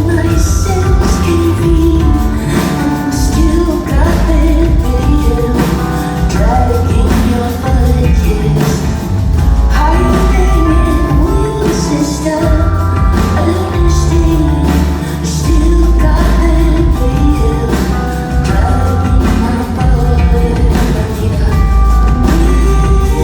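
Pop music with singing over full instrumental backing and strong bass, playing without a break.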